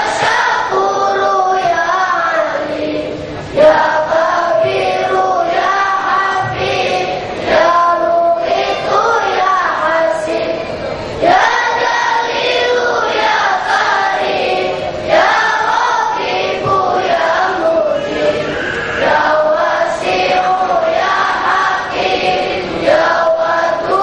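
A large choir of boys singing together, young voices holding long notes that step up and down in pitch, with a few phrases starting at a sudden louder swell.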